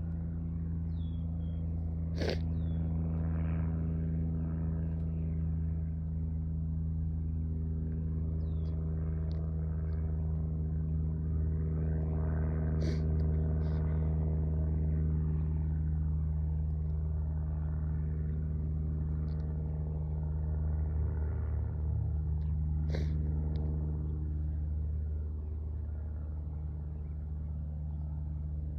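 An engine running steadily at low speed: a deep drone with overtones that swells slightly twice. A few sharp clicks and a couple of short high chirps sound over it.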